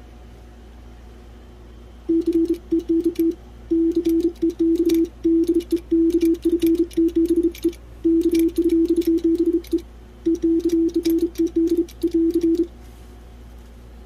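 Morse code sent on a Vibroplex semi-automatic bug key: a steady low tone keyed on and off in quick runs of dots and dashes, with the key's contacts clicking. The sending starts about two seconds in and stops a little over a second before the end.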